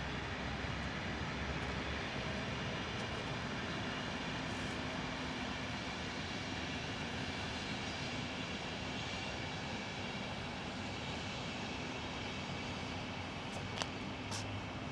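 Steady outdoor rumble of distant vehicles, with two short sharp clicks near the end.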